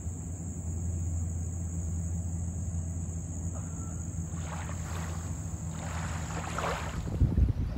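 Boat motor running at a steady low hum. About halfway in, gusts of wind and water rush begin and grow louder toward the end.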